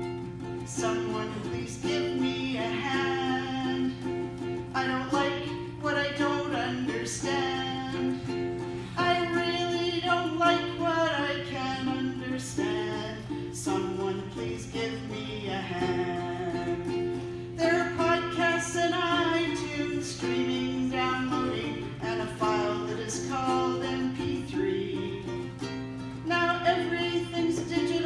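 Ukulele strummed, with a voice singing a melody along with it.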